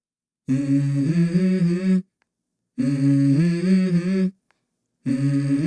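A low voice humming a short stepped melodic phrase three times, with dead-silent gaps between: a hummed song intro.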